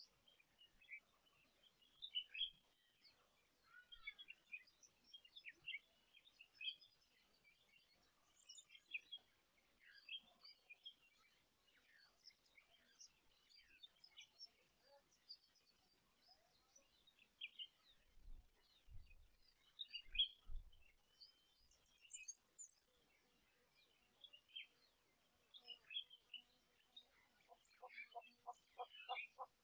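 Faint wild birds chirping and calling in scattered short notes. A few low thumps come about two-thirds through, and near the end a rapid, even run of pitched calls begins, about five a second.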